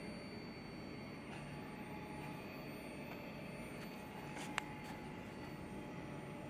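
Steady low machinery hum with faint high whining tones, and a single sharp click about four and a half seconds in.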